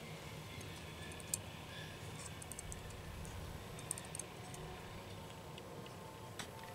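Faint, scattered light clicks and ticks from fingers handling a small 1/400-scale die-cast metal airliner model, over a low steady background rumble.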